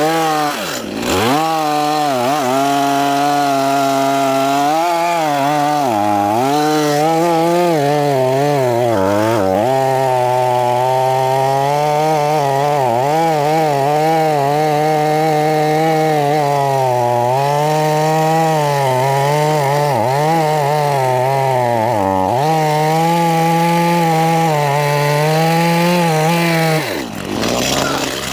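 Stihl gas chainsaw running at high throttle while cutting wood. Its pitch sags and recovers again and again as the chain loads up in the cut, with brief sharp drops about a second in and near the end.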